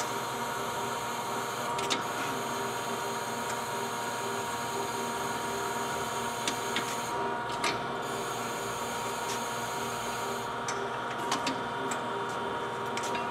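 Cincinnati Milacron/Heald 273A internal grinder running under power, its electric motors and drives giving a steady hum with a high whine. A high hiss drops out briefly about seven seconds in and again about ten and a half seconds in. A few sharp clicks come as the controls are worked.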